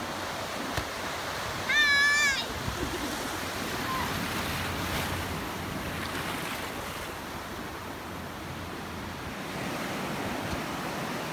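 Shallow surf washing and breaking around the water's edge, a steady rushing noise. About two seconds in, a child gives one short, high-pitched squeal, the loudest sound here.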